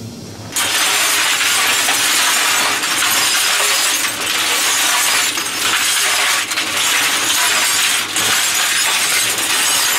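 Old concrete mixer tumbling freshly forged steel holdfasts in a drum full of scrap iron: a loud, continuous metallic clatter and rattle that starts about half a second in. The tumbling knocks the forge scale off the steel.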